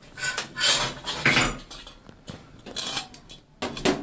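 New shower valve parts being picked up and handled, giving a run of short clattering and rustling noises.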